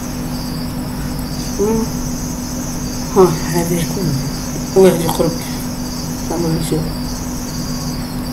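Crickets chirping steadily in the background over a steady low hum, broken by a few short bursts of a man's voice, the loudest about three and five seconds in.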